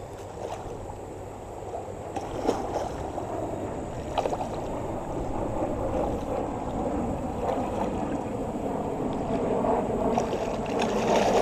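Hooked common carp thrashing and splashing at the surface of a shallow creek, with a few sharp slaps; the splashing grows louder toward the end.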